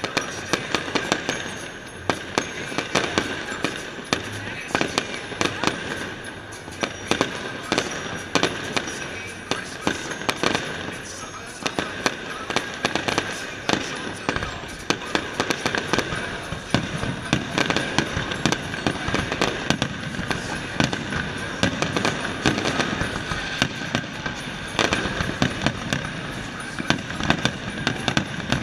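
Fireworks display going off continuously: a dense run of rapid bangs and crackling, several a second, with crowd voices underneath.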